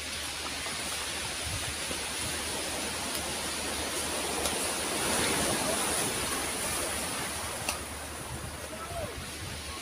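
Surf washing onto a pebble beach: a steady rushing that swells about halfway through.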